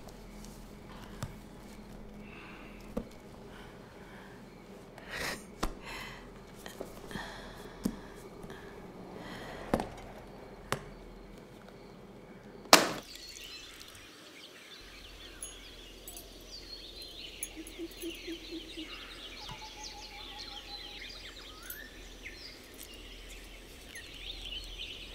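Quiet ambience: scattered small clicks and knocks, with one sharp click about halfway through, then many faint high chirps.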